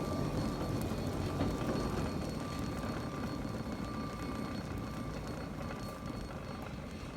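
Funicular (cable car) rumbling along its rails, a steady low rumble that slowly fades as it moves away, with a faint thin steady tone above it.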